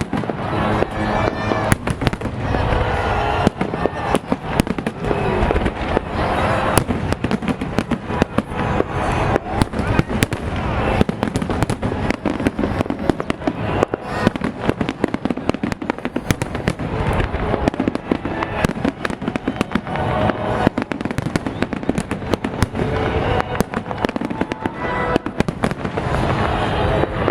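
Fireworks display: a dense, continuous barrage of rapid bangs and crackles, with music playing underneath.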